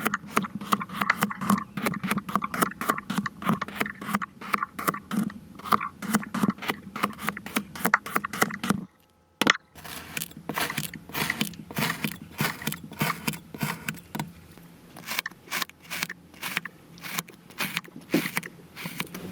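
Many quick, crisp crunching and crackling clicks, as of kinetic sand being cut, pressed and crumbled, with a brief break about nine seconds in.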